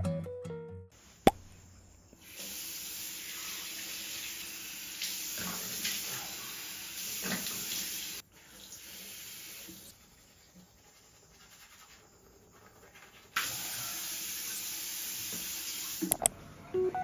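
Tap water running into a ceramic bathroom sink as hands are washed under the stream. It runs in two stretches with a quieter gap between.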